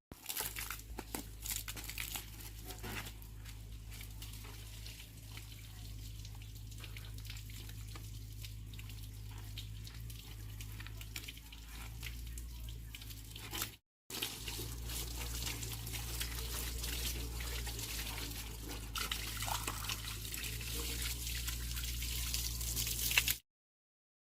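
Water running and splashing steadily over a constant low hum. It breaks off sharply for a moment about fourteen seconds in and cuts out near the end.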